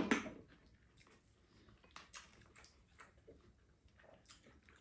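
Eating at the table: a sharp clink of a spoon against a ceramic bowl right at the start, then faint chewing and a few light utensil clicks.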